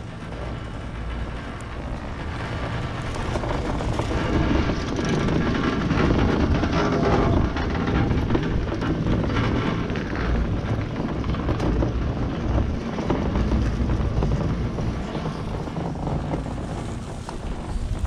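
Wind blowing on the microphone and the rumble of a Riblet center-pole double chairlift on the move, the haul rope and chair running over a tower's sheaves. The rumble builds over the first few seconds and is loudest in the middle.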